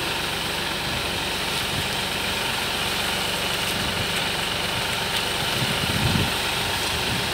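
Engine of a high-clearance sugarcane sprayer tractor running steadily as the machine drives along, with a steady hiss over it.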